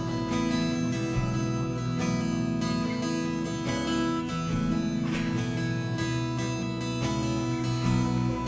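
Instrumental music: acoustic guitar strumming over sustained, held chords at a steady level.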